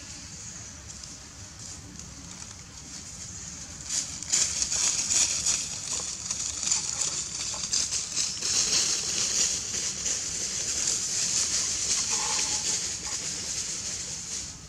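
Loud high-pitched chorus of cicadas, a dense rapidly pulsing buzz that swells in about four seconds in and cuts off abruptly near the end.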